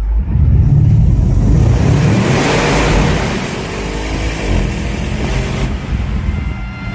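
Audi RS6 C7's twin-turbo V8 accelerating hard, its pitch climbing, with a loud rushing hiss over it that cuts off suddenly near the end.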